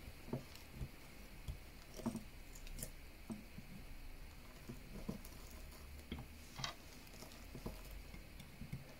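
Faint, irregular scratches and small clicks of a small knife blade cutting and scraping bark from the trunk of a Fukien tea (Carmona) bonsai, to look for live green wood beneath.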